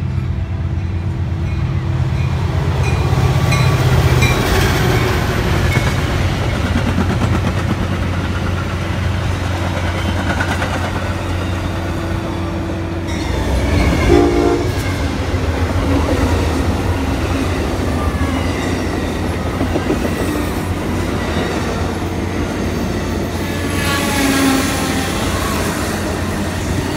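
Amtrak Southwest Chief passenger train, led by a GE P42DC Genesis diesel locomotive, approaching and passing close, its engine running with a steady low rumble and its horn sounding. Then bi-level Superliner cars roll by with the wheels clattering over the track.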